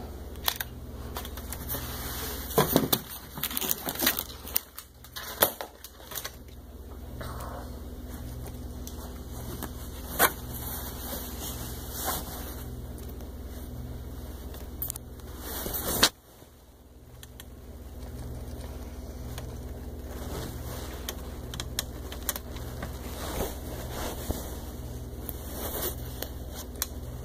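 Handling noise from a handheld camera: rustles and sharp clicks, busiest between about two and six seconds in, with a few single louder clicks later, over a steady low hum. About sixteen seconds in, a sharp click is followed by a sudden drop in level that slowly builds back up.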